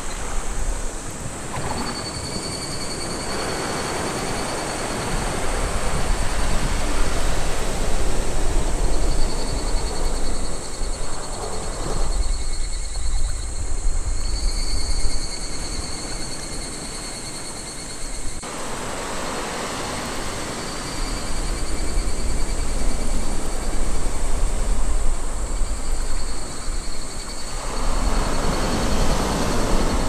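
Small sea waves breaking and washing up a sandy beach, the surf noise swelling and ebbing every several seconds over a low rumble.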